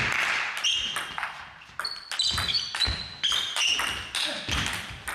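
Table tennis rally: the ball clicking sharply and irregularly off bats and table, about two to three hits a second, each with a brief high ping.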